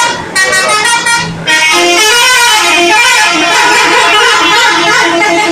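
Bus 'telolet' multi-tone air horn playing a tune of stepped notes. Two short bursts end about half a second and a second and a half in, then the horn plays on without a break, changing note.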